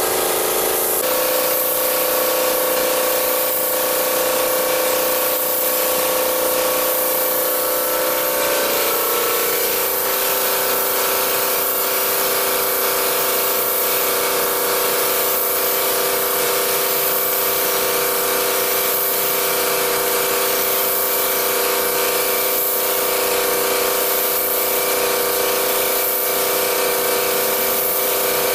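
Gravity-feed air spray gun hissing steadily as it sprays a clear finish onto a wooden tabletop, with a steady mechanical hum underneath.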